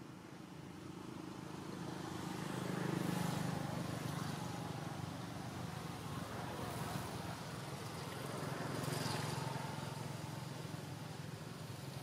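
Low hum of motor vehicle engines passing by, swelling twice, about three seconds in and again about nine seconds in.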